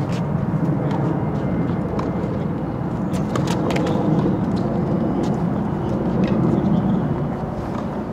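Tennis balls struck by racquets during a rally, sharp hits standing out several times over a steady low rumble.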